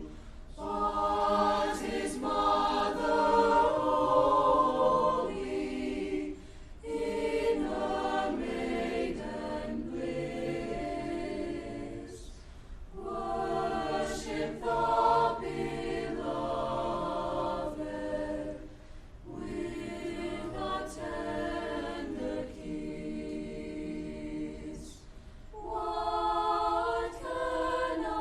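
Student choir singing a cappella, several voice parts together in phrases of a few seconds with short pauses between them.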